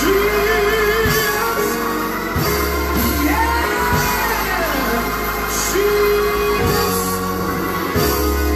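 Live gospel music: a band plays under held, changing bass notes while a voice sings long gliding melodic runs without clear words.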